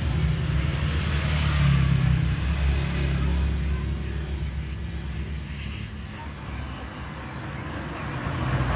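Hot air rework gun blowing: a steady rush of air over a low hum. It fades somewhat in the middle and swells again near the end as the nozzle is moved over a phone screen to heat and soften the screen adhesive.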